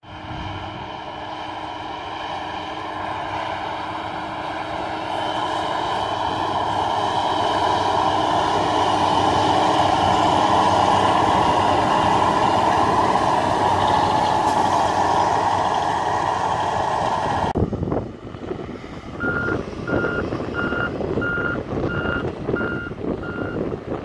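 Manure spreader truck running while it spreads chicken manure, its engine and spinning rear beaters drawing closer and louder, then easing off. After a sudden change, a backup alarm beeps about seven times at an even pace.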